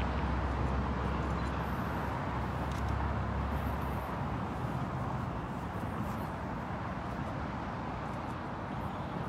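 Steady outdoor background noise with a low rumble that eases about four seconds in.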